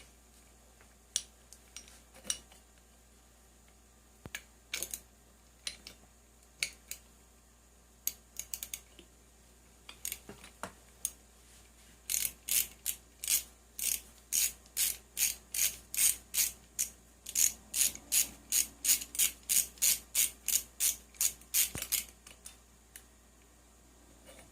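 Ratchet wrench clicking while working on the flywheel nut of a Zenoah G320 engine: scattered clicks at first, then about halfway through a steady run of quick clicks, roughly three a second, that stops shortly before the end.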